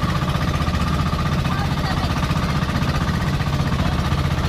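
Motorized outrigger boat's (bangka's) engine running steadily under way, a loud, rapid, even pulsing.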